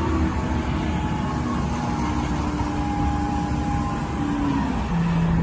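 A motor vehicle's engine running steadily with road or traffic noise, its pitch drifting slightly up and down.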